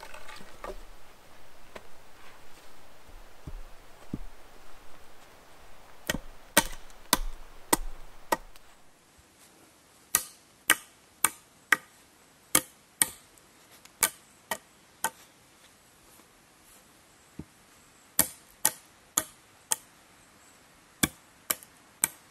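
Wood being struck with a hand tool, as in chopping. A few sharp knocks come in the first half, then runs of three to five strikes at about two a second with short pauses between.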